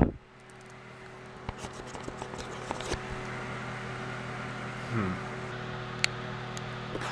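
Electric fan running with a steady hum and hiss. There are a few faint clicks and a short low falling sound about five seconds in.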